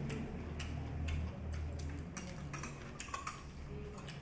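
Close-up eating sounds: irregular, sharp clicks and smacks of chewing and lips, about ten in four seconds, over a low steady hum.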